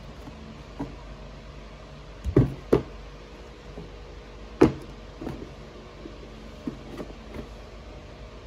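Cardboard shoebox being handled: dull knocks and taps as it is set down and its lid taken off. There are two close knocks about two and a half seconds in, the loudest knock near the middle, and lighter taps after it.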